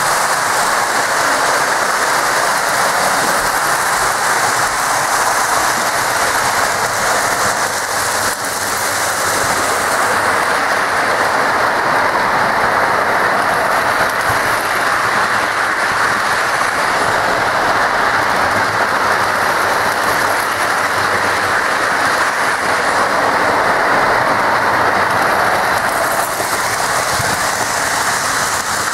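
Several Lionel O-gauge model trains running at once around the layout's track: a steady rolling rumble and clatter of wheels on the rails.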